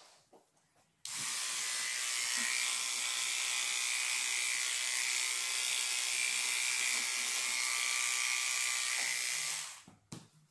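Electric animal hair clippers switched on about a second in, buzzing steadily as they shave a puppy's fur around an infected bite wound, then switched off near the end.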